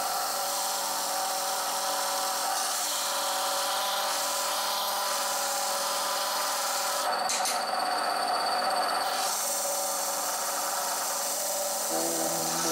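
Bench disc sander running while the edge of a wooden part is pressed against the spinning sanding disc, the wood rubbing on the abrasive.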